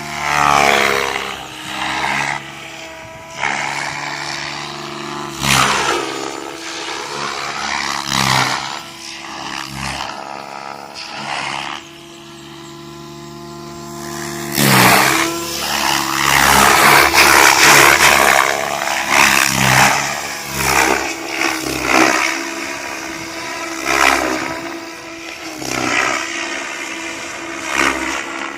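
Goblin 700 electric RC helicopter flying 3D aerobatics: the rotor and electric motor whine rising and falling in pitch, with repeated loud rushing surges of blade noise as the blade pitch is thrown back and forth.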